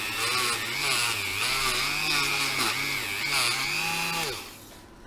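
Dremel rotary tool grinding metal to port a motorcycle fork, its motor pitch dipping and recovering again and again as the bit bites and eases off. It stops a little over four seconds in.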